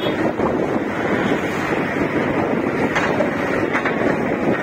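Wind buffeting the microphone of a moving vehicle, over steady engine and road noise.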